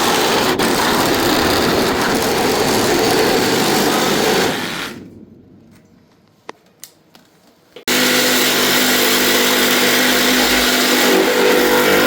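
Power tool working the metal of the body, loud and harsh. It dies away about four and a half seconds in, leaving a few clicks in the quiet, then starts again abruptly about three seconds later with a steadier pitched whine.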